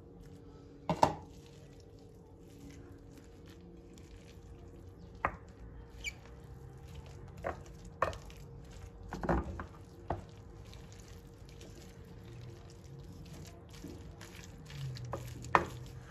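Wooden spoon stirring a thick, wet leek and flour mixture in a glass bowl, with scattered sharp knocks of the spoon against the glass; the loudest knocks come about a second in and near the end.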